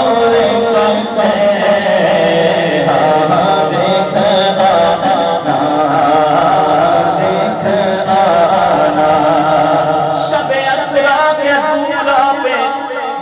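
A man singing a naat (Urdu devotional poem) into a microphone, drawing out long, wavering melodic notes with no clear words.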